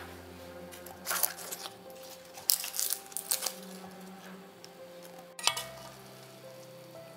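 A steamed banana leaf being peeled back off a pan of rice, crinkling and rustling in a few short bursts, over soft background music.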